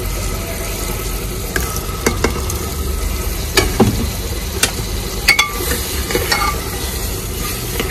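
Red lentils frying in hot oil in an aluminium pressure cooker while a steel ladle stirs them, knocking and scraping against the metal pot in about seven sharp clinks. A steady low hum runs underneath.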